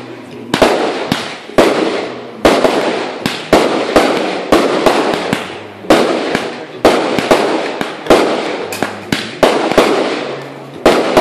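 Multi-shot fireworks cake firing in quick succession, about two sharp bangs a second, each trailing off in a fading rush of noise as the shells burst overhead.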